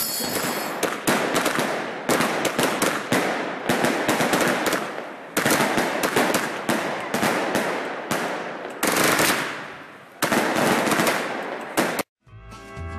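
Firecrackers going off in rapid crackling volleys, loud clusters of bangs with brief lulls between them. The bangs cut off abruptly about a second before the end, and guitar music begins.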